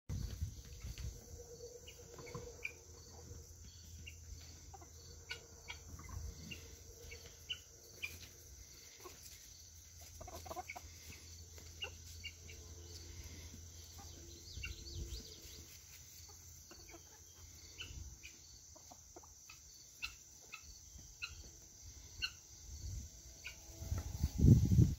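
Outdoor yard ambience: scattered short bird calls over a steady high insect drone. A low rumble sits on the microphone throughout and swells loudest near the end.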